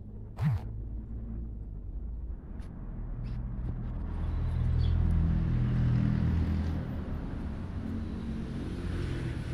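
A road vehicle passing: a low engine rumble that swells to its loudest about five to six seconds in, then eases off. A brief sharp sound comes about half a second in.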